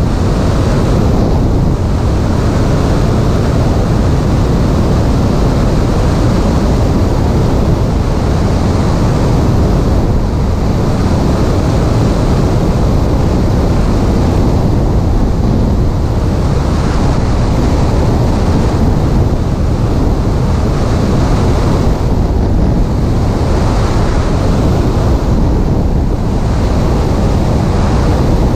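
Loud, steady rush of wind buffeting the microphone of a camera mounted on a Piper Cherokee's stabilator, with the airplane's engine and propeller noise blended in, swelling and easing slightly every few seconds.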